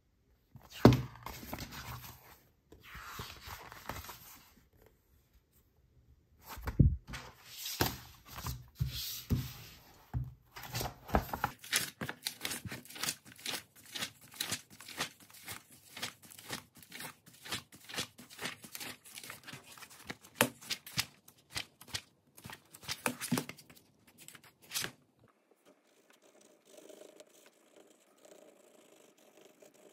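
Paper handling: a sheet rustles and crackles in bursts. Then, from about twelve seconds in, a colouring book's pages are riffled quickly, flap after flap, for about thirteen seconds. Near the end comes the faint, steady scratch of a crayon colouring on paper.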